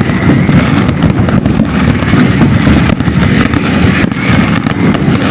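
Fireworks going off in a rapid, continuous barrage: a dense, loud run of overlapping bangs and crackles with no gaps between them.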